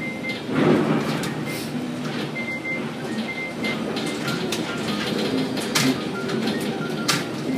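Container gantry crane machinery running, with a louder rush of noise about half a second in and two sharp clicks near the end, over faint radio music.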